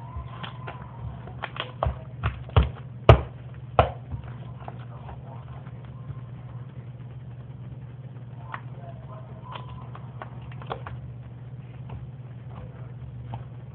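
A run of sharp clicks and taps, the loudest about three seconds in, then a few fainter ones, over a steady low hum.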